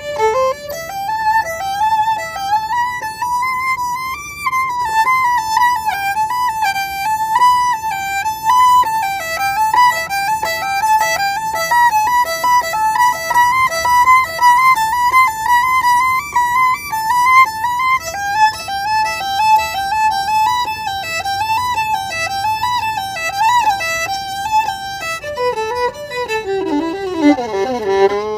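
Solo violin played with the bow, improvising a fast, ornamented melody that stays mostly in the middle-upper register; near the end it slides down to a low note that is held.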